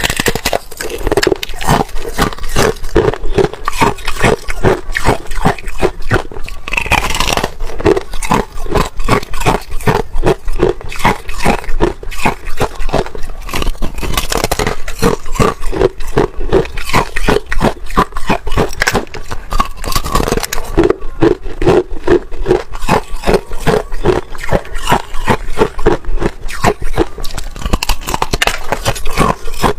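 Slabs of hard ice being bitten and chewed close to the microphone: a rapid, continuous run of crisp crunches and cracks.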